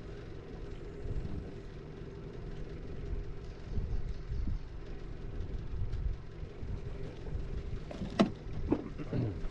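A boat motor running steadily, a low rumble with a faint steady hum. A sharp knock about eight seconds in, followed by a lighter one.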